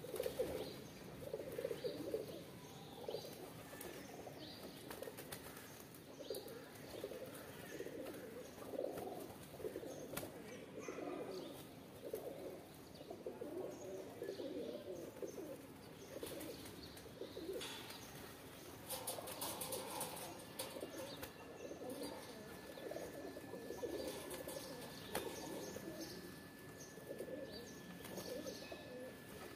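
Pigeons cooing over and over, with wing flaps as they jostle and flutter up while feeding on grain.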